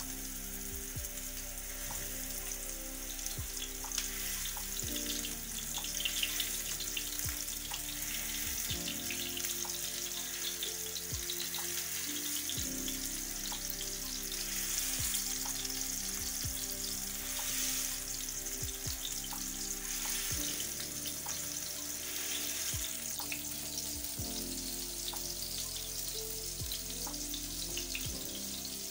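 Minced-meat kebab patties sizzling steadily as they shallow-fry in oil in a non-stick pan. Background electronic music with a steady beat plays under the frying.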